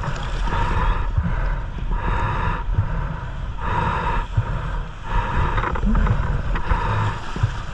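Wind buffeting the microphone with a constant low rumble, overlaid by a hissing swell that rises and falls about every second and a half.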